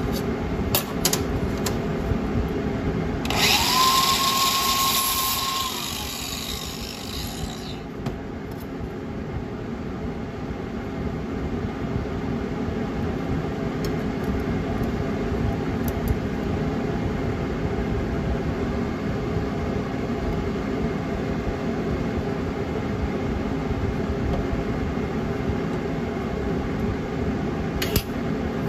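A power tool runs for about four seconds a few seconds in, its whine rising as it spins up and then holding steady, over a steady machine hum. Near the end there is a brief crackle as a welding arc strikes to tack the thin stainless pipe piece.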